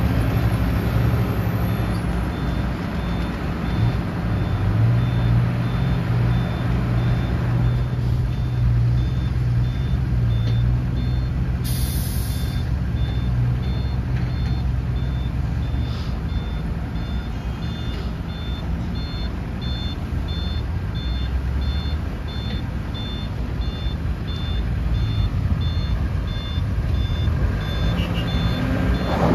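Sumitomo SH250-6 excavator's diesel engine running under hydraulic load as it digs and swings, with a dump truck's reversing alarm beeping in a steady, evenly spaced pattern through most of it. A short burst of hiss comes about twelve seconds in.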